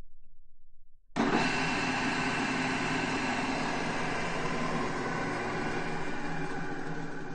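Large drill press running: a steady machine hum and whine with several held pitches, coming in suddenly about a second in.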